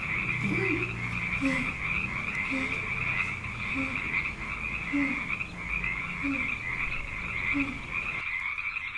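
Frogs croaking: a short low croak repeating about once a second over a steady high-pitched chorus.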